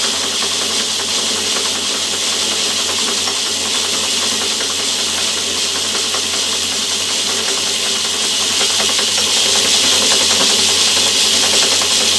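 Myford ML7 lathe running in reverse at a higher speed, its engaged lead screw driving the carriage back after a thread-cutting pass: a steady mechanical whir with a hiss, getting a little louder about eight seconds in.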